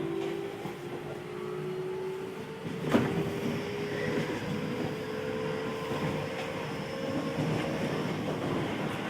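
Keio new 5000 series electric train heard from inside the car while running. The Hitachi SiC inverter and traction motor whine rises slowly in pitch as the train gathers speed, over wheel and running noise. A single sharp knock comes about three seconds in.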